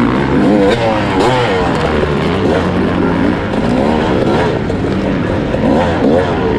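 Sherco 300 SE-R's single-cylinder two-stroke engine being ridden hard off-road, revving up and down rapidly through the gears and throttle changes.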